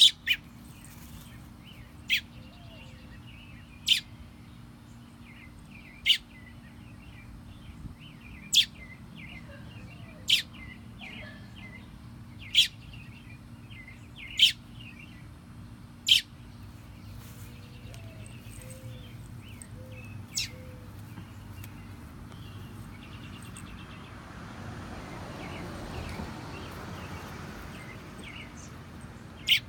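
A bird giving a short, sharp, loud call about every two seconds, with softer chirping in between. A broad rush of noise swells and fades about three-quarters of the way through.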